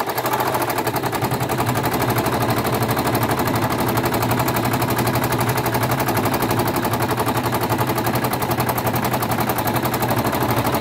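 Domestic sewing machine stitching at high speed for free motion embroidery, its foot pedal pressed nearly to the floor: a steady, rapid clatter of needle strokes.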